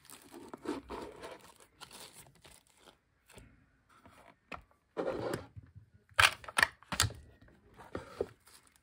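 Thin plastic packaging bag crinkling and rustling as it is handled, with a few sharp clicks and knocks from a clear plastic tray being lifted out of a cardboard box. The clicks are loudest about six to seven seconds in.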